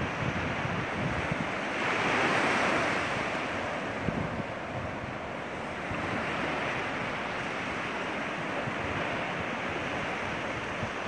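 Surf washing onto a sandy beach, with wind buffeting the microphone in low gusty rumbles; the wash swells louder about two seconds in and again around six seconds.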